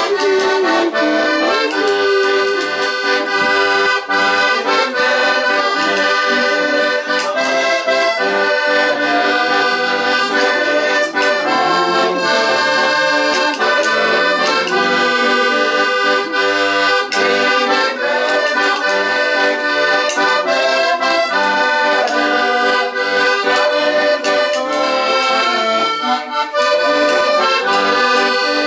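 Accordion playing a tune, a melody moving over held chords without a break.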